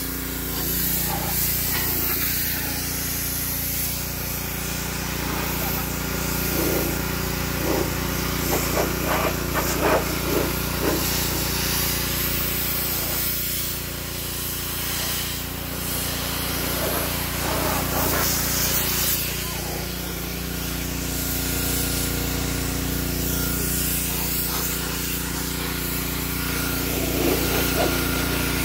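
Pressure washer running: a steady motor drone under the hiss of the water spray.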